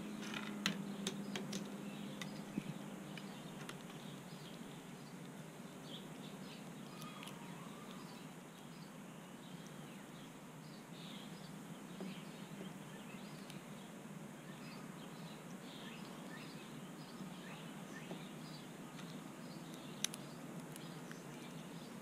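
A crow pecking at corn kernels on a wooden deck rail, a few sharp taps in the first few seconds and one more near the end. Faint chirping of small songbirds goes on in the background.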